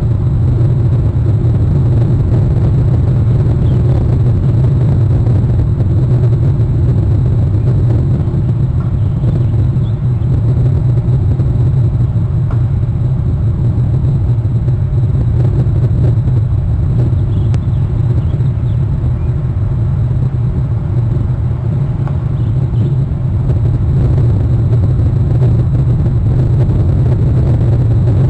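Steady low rumble of wind buffeting the outdoor nest-cam microphone, with a faint hiss above it.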